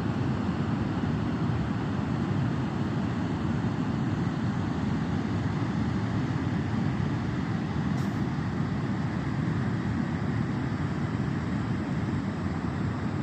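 Steady low roar of seaside wind and surf, even throughout with no distinct events.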